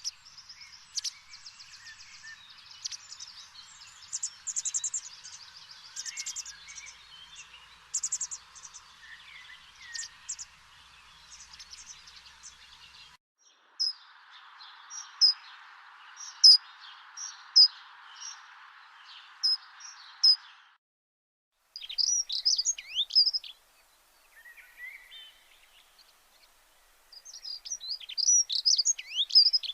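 Birds chirping and twittering, with many short, high calls over a faint hiss. The sound cuts out briefly twice.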